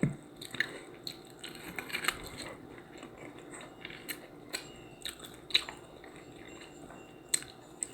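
A person chewing food close to the microphone, with scattered small clicks, smacks and soft crunches of the mouth at work.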